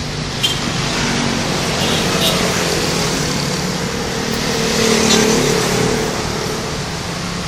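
Road traffic with a bus engine running, the noise swelling to its loudest about five seconds in as a vehicle passes close.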